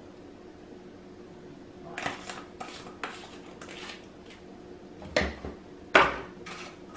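Spice shakers and utensils handled on a kitchen countertop: a few short rattles and scrapes, then two sharper clacks of containers set down, about five and six seconds in.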